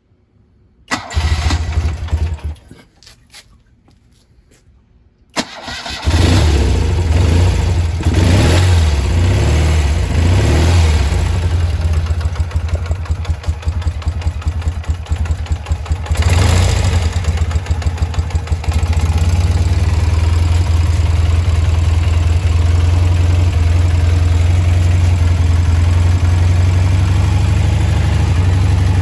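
1971 BMW R75/5's air-cooled flat-twin engine being started: a short burst about a second in, then it starts about five seconds in and keeps running. Its speed rises and falls a few times before it settles into a steady idle.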